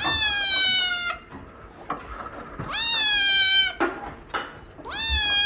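A cat meowing loudly three times, each meow about a second long, rising quickly and then sliding slightly down in pitch.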